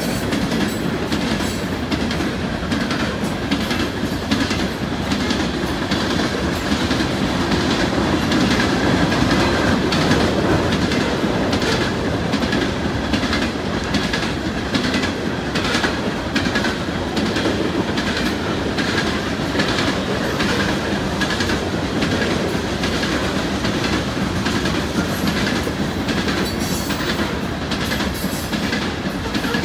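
Coal train hopper cars rolling past, a steady rumble with regular clickety-clack of wheels over rail joints and a faint wheel squeal.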